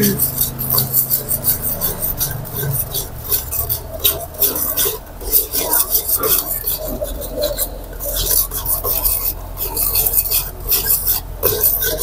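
Metal ladle scraping and stirring around a wok in rapid, irregular strokes, over the sizzle of egg yolk frying in oil into crispy strands.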